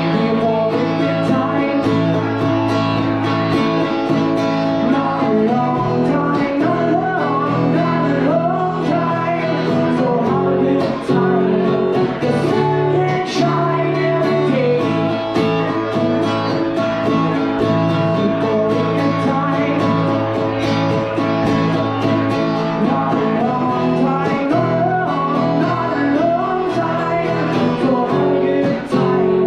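Music: a guitar-led song with singing.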